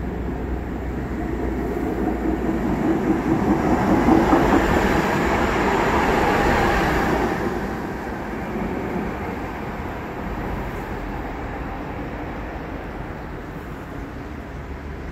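Ganz articulated tram running past on its rails: the rumble of wheels on track grows louder, peaks about four to seven seconds in as it passes close by, then fades as it moves away.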